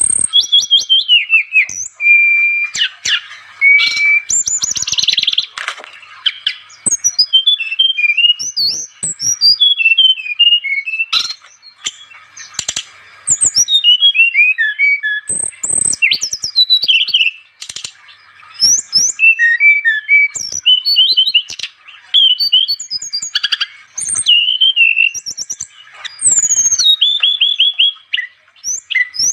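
A brown-chested jungle flycatcher (SRDC) singing in full voice: a fast, varied stream of whistled chirps and trills with quick rising and falling notes, in phrases broken by short pauses.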